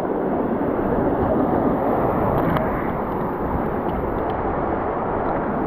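Surf breaking and washing against the boulders of a rock jetty: a steady rushing noise.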